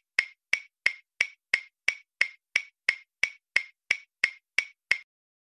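Cartoon footstep sound effect: sharp, evenly spaced clicks with a short ring, about three a second, stopping about five seconds in.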